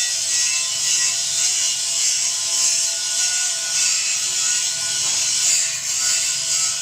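Wood pellet mill running, giving a steady rattling, grinding noise.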